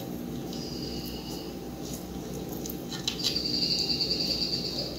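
Paper masking tape being pulled and wrapped around wire joints, giving two high-pitched squeaks, one short near the start and a longer one in the second half, over a steady low hum.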